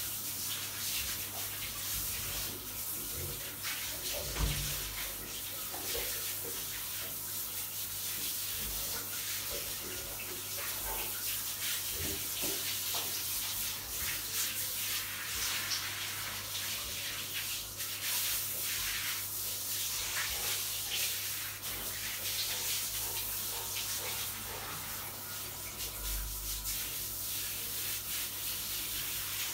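Water from a hand-held shower running and splashing on the floor of a shower cabin, a steady hiss, under a steady low hum, with a few light knocks.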